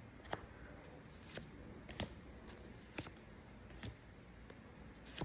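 Faint, soft clicks about once a second as trading cards are slid one by one from the front of the stack, over a quiet room background.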